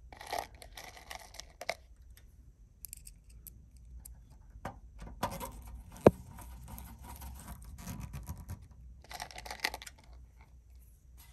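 Hands handling small screws and parts on a tube amplifier kit's metal chassis during assembly: intermittent scraping and light rattling, with one sharp click about six seconds in.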